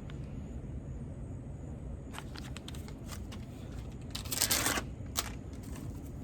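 Plastic wrapper of a packaged birdseed treat being handled: a few light crinkles and clicks, then one brief loud rustle a little after four seconds in.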